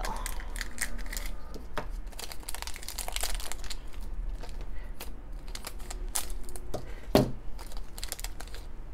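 Crinkling and tearing of a shiny purple plastic blind bag being worked open by hand, with scattered crackles. One sharper click sounds about seven seconds in.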